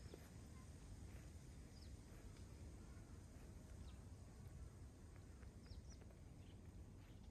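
Near silence: faint outdoor ambience with a steady low rumble and a few faint, short high chirps.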